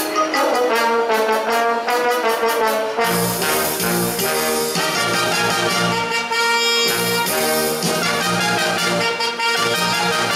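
Live brass band playing: trumpets, trombones and saxophone over a sousaphone bass line with a steady drum beat. The low bass notes come in about three seconds in.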